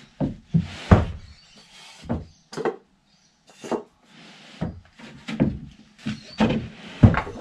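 Irregular wooden knocks and thuds: a plywood sheet is bumped and pressed against the wall, and timber offcut blocks are set down on the concrete floor under its edge to pack it up. About ten separate knocks, the loudest about a second in and near the end.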